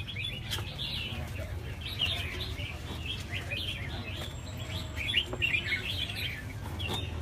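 Many caged red-whiskered bulbuls singing and chirping together, short bright calls overlapping without pause.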